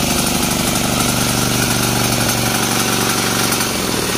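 Single-cylinder diesel engine of a VIS 95D power weeder running steadily just after being recoil-started, with the decompression lever down and the accelerator lever pulled full on.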